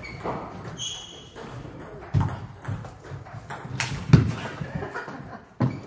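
Table tennis rally: the ball clicking off the bats and the table in an irregular run of sharp ticks, about two or three a second, starting about two seconds in and loudest a little after the four-second mark. A brief high squeak comes about a second in.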